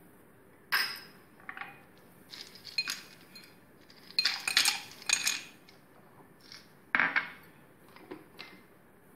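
Ice cubes tipped from a glass bowl into a glass tumbler, clinking against the glass in a quick cluster about four seconds in. Separate sharp glass clinks come before and after.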